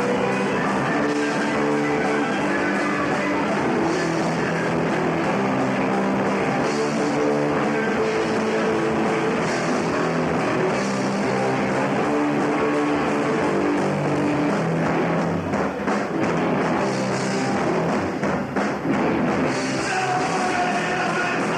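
Punk rock band playing live, with distorted electric guitars, bass and a drum kit with cymbal crashes. The playing turns choppy for a few seconds past the middle.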